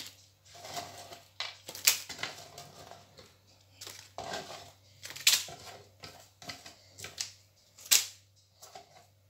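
Hard pieces of peanut brittle being picked up and set down on a plate lined with baking paper: the paper crinkles and rustles, and three sharp clicks, about two, five and eight seconds in, are pieces knocking onto the pile.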